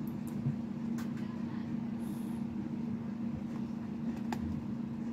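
Steady low hum with a few faint short clicks.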